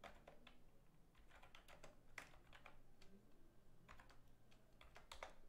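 Faint typing on a computer keyboard: irregular, quick key clicks in small runs.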